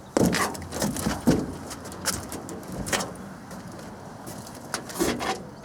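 Unpacked sawmill parts and packing being handled: a few irregular knocks and clinks, some sharp, over quieter rustling.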